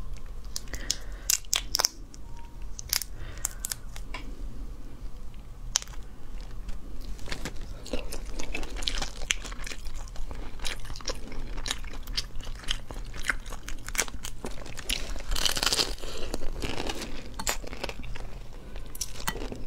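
Cooked prawn shells cracking and crackling as they are peeled apart by hand, mixed with close-miked chewing and biting. Many sharp cracks throughout, densest about three-quarters of the way through.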